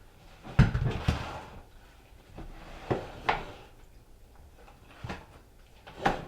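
Containers and supplies being set down and handled on a tabletop: a series of knocks and clatters, loudest about half a second in, with further knocks around three seconds and near the end.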